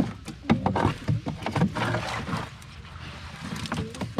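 Wet slaps and knocks of a pile of freshly caught mullet being handled and shifted in a boat's hold, busiest in the first two and a half seconds and sparser after.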